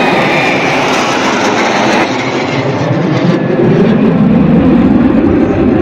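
Jet engine noise from a formation of military jets flying past, a steady rumble that grows louder about four seconds in.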